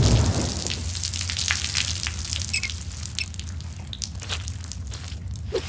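Water from a shower spattering and dripping onto a wet concrete floor, the splashing thinning out over the seconds, over a low steady hum.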